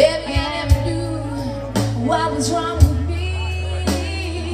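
Live blues-rock band playing through a PA, heard from within the audience: a steady electric bass line, drum-kit hits about once a second, and a bending lead melody over them.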